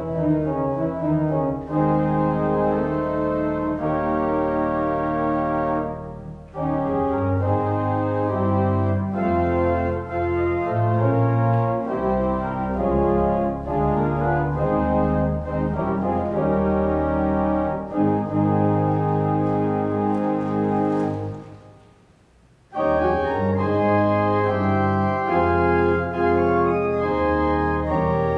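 Organ music: sustained chords moving from one to the next, with a brief break about six seconds in and a longer pause of about a second and a half a little past the twenty-second mark before the playing resumes.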